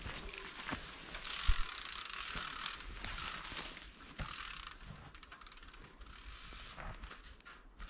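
Mountain bike's rear freewheel hub buzzing with rapid ratchet clicks as the bike coasts, mixed with tyres rustling through dry leaf litter. In the second half the buzz thins into fainter separate fast ticks.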